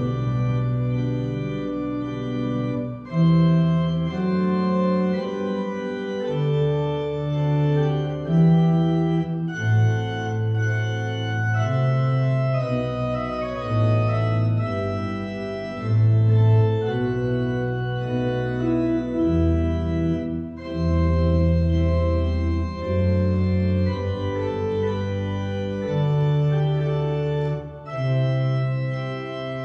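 Church organ played solo: held chords over a moving bass line in the pedals, with short breaks between phrases.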